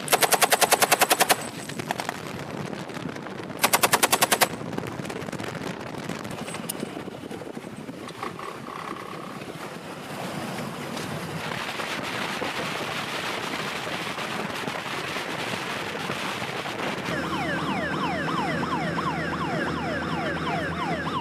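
Two bursts of automatic fire from a boat-mounted belt-fed machine gun, at roughly ten shots a second. The first lasts just over a second and the second starts about three and a half seconds in and lasts under a second. Steady rushing wind and water noise from the moving boat follows, with a wavering pitched engine-like sound joining near the end.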